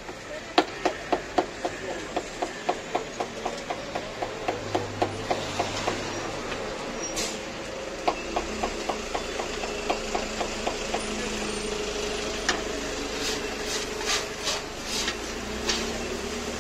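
Large knife chopping tomatoes on a wooden cutting board in a quick, even rhythm of about four chops a second, in two runs with a short pause between. Near the end come a few sharper, brighter clicks.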